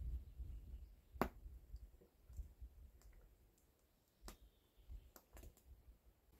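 Wood fire crackling: a few sharp, sparse pops, the loudest about a second in and a small cluster around four to five and a half seconds, over a faint low rumble.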